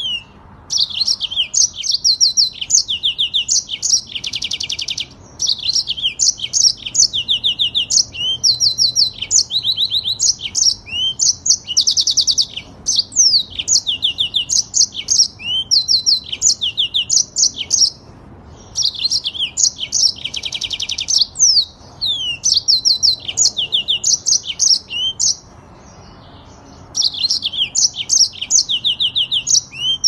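Yellow-fronted canary (Mozambique canary) singing a long, rolling song: fast trills of rapidly repeated high notes and quick sweeping chirps, phrase after phrase with only brief pauses.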